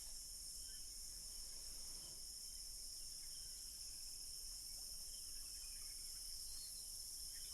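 Faint, steady high-pitched chorus of insects, such as crickets, chirping without a break.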